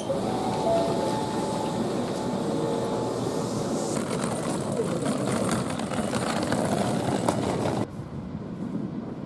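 Busy train-station noise as passengers leave a Hankyu train onto the platform, with faint steady tones in the first seconds. Near the end it cuts to a quieter, steady rush of river water.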